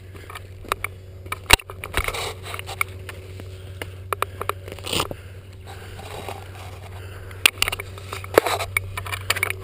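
Scattered sharp clicks and knocks at uneven intervals during an airsoft game, the loudest about a second and a half in, over a steady low hum and rustling.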